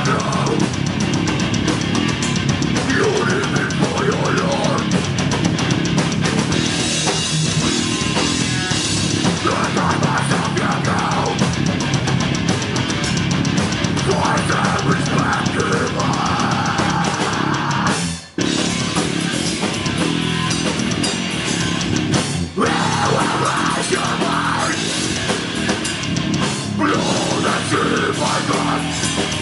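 Death metal band playing live: distorted electric guitar, bass and drum kit in a loud, dense wall of sound. The band stops dead for a split second about eighteen seconds in, then comes straight back.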